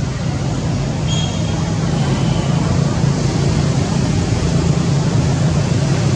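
A steady low rumble, mechanical in character like distant motor traffic, with a brief faint high chirp about a second in.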